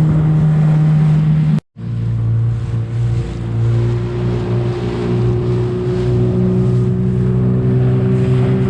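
Outboard motor of a small aluminium boat running under way, a steady drone. It cuts out abruptly for an instant about one and a half seconds in, then comes back at a lower pitch that slowly rises.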